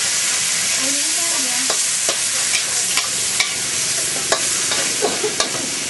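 Crispy pork stir-frying in a wok: a steady sizzle, with sharp clacks of the spatula against the wok, about eight of them, mostly in the second half.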